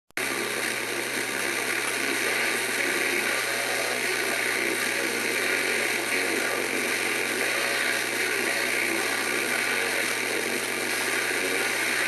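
Radio static: a steady hiss of white noise from a Sony portable CD/cassette radio, with a faint low hum underneath. It cuts in abruptly at the start and holds an even level.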